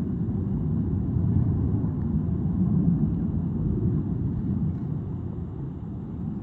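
Steady low rumbling noise with no distinct tones or knocks, the kind of outdoor rumble given by wind on a microphone or distant traffic.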